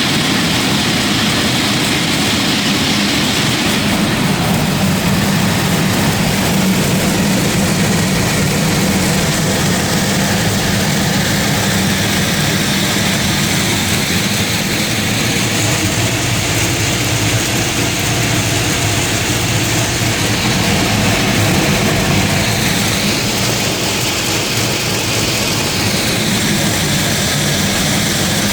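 Pecan shelling machine running steadily, a loud continuous mechanical noise with no pauses.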